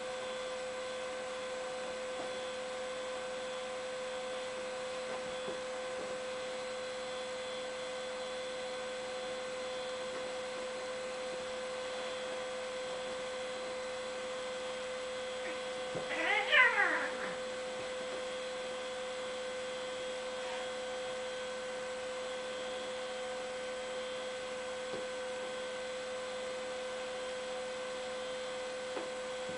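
Bengal cat gives one short yowl about halfway through, its pitch falling steeply over about a second, during a scuffle with another Bengal cat. A steady electrical hum runs underneath.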